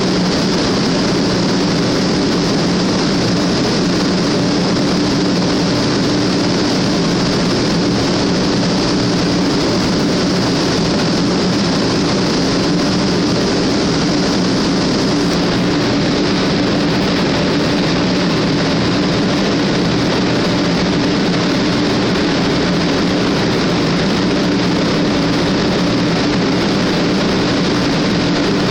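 Sanyo Shinkansen bullet train running at speed: a steady, unchanging rumble and hiss with a low hum underneath.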